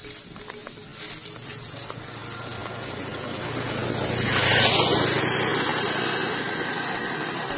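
A motor vehicle driving past on the road: its noise swells over a few seconds, is loudest about halfway through, then slowly fades.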